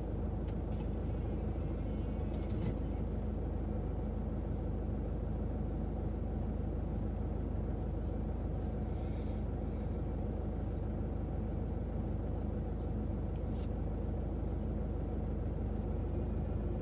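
Steady low outdoor background rumble, much like traffic noise, with a few faint clicks.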